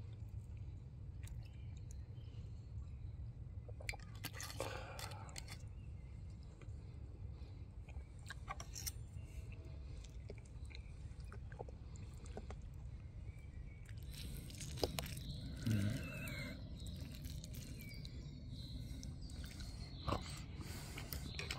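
Someone eating and chewing, with scattered short clicks and scrapes, over a steady low outdoor rumble. There is a louder cluster of clicks about two-thirds of the way through.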